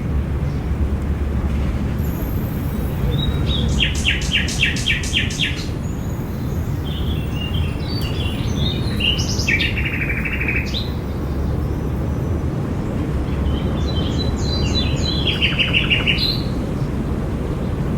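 Songbirds singing: three short phrases of quickly repeated trilled notes, about four seconds in, around the middle and near the end, over a steady low rumble.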